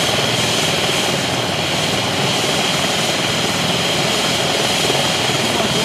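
Airbus EC135 twin-turbine rescue helicopter running on the ground with its main rotor turning: a steady high turbine whine over a low, rapid rotor beat.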